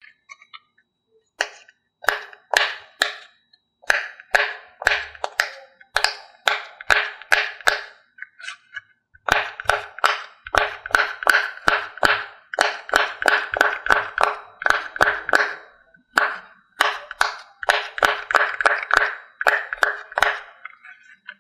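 Bubbles of a pineapple-shaped silicone pop-it fidget toy pressed in by fingertips one after another, a quick run of sharp pops, at times about four a second, with a couple of short pauses.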